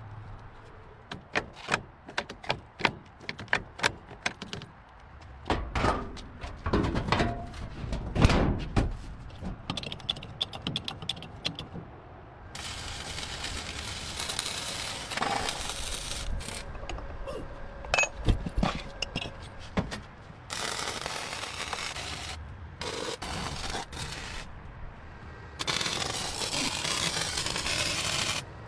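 Hand work on a car under restoration: a quick run of sharp taps and knocks with a few heavier thuds, then several stretches of steady hissing noise, like sanding or spraying, that start and stop abruptly.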